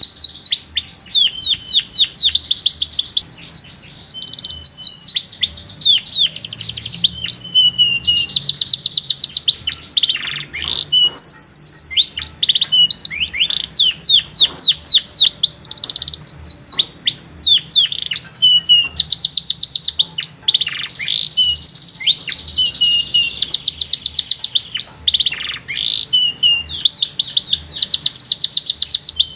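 Domestic canary singing a long continuous song: rapid high trills of repeated notes, broken up by quick downward-sweeping notes, one phrase running straight into the next.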